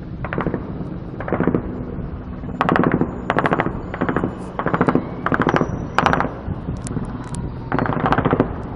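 Automatic gunfire: about nine short bursts of rapid shots over several seconds, several following each other about half a second apart, over a steady low rumble.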